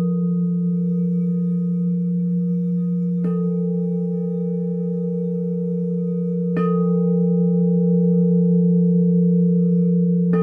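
Singing bowls sounding: a low tone held steadily underneath while a bowl is struck twice, about three seconds apart, each strike ringing on with several higher tones.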